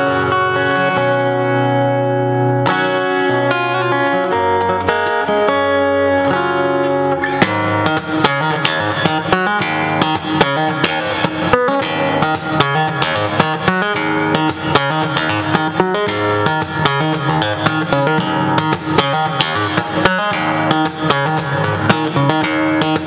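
Overdrive F-41C acoustic-electric guitar played fingerstyle and plugged into a small acoustic amplifier. It opens with slow, ringing chords; about seven seconds in it turns into a busy run of quickly picked notes.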